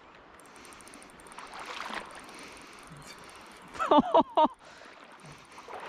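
Fast river current rushing past, a steady watery hiss that swells a little about two seconds in. A man's voice calls out briefly about four seconds in.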